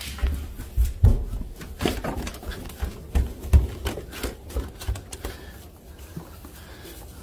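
Irregular footsteps and soft thumps, with light clicks, as a person walks along with a dog pressed against their hand.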